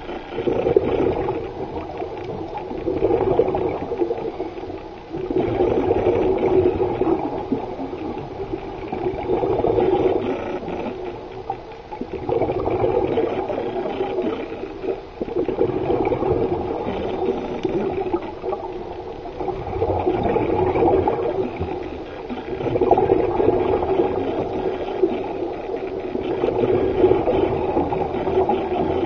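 Scuba diver breathing through a regulator, heard underwater: exhaled bubbles gurgling in repeated swells every three seconds or so.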